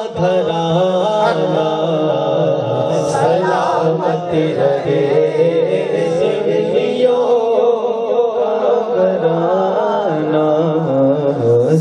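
Qawwali singing: a male voice carries a devotional melody with long, wavering ornamented notes, over a steady low held note.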